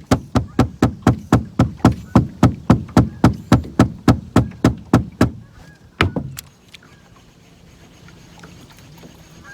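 Rapid, evenly spaced knocks on a boat's hull, about three or four a second, stopping after about five seconds. One louder knock follows a moment later.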